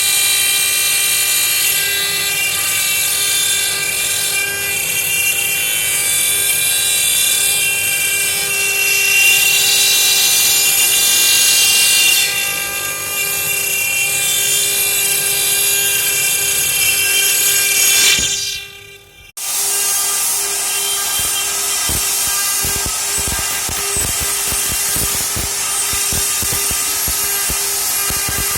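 CNC stone-carving machine running, its cutting spindle giving a steady high whine with a strong hiss. About two-thirds of the way through, the sound drops away for about a second, then comes back with rapid small clicks over the same whine.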